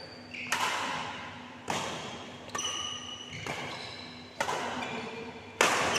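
Badminton rackets striking a shuttlecock back and forth in a rally: six sharp cracks about a second apart, the loudest near the end, each echoing in a large sports hall.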